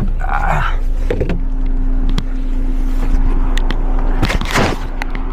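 Audi A4L car being driven, with steady low road and drivetrain rumble and a steady hum that sets in about a second in. A short rush of noise comes near the start and again about four and a half seconds in.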